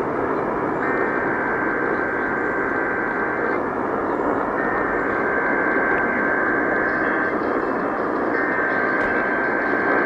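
Emergency Alert System header data tones received on an AM radio: three bursts of the digital header warble, each about two and a half seconds long with about a second's gap between them, over steady AM static hiss.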